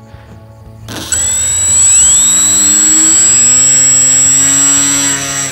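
Brushless 2212 1400 KV motor with an 8-inch folding propeller run up on the ground for a throttle test. About a second in it spins up with a rising whine, then holds steady at speed with a high electric whine, easing off near the end.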